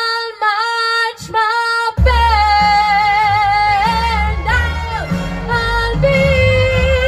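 A teenage girl singing a Broadway show tune live into a handheld microphone: a few short phrases, then long held notes with vibrato. A backing track's bass and beat come in about two seconds in.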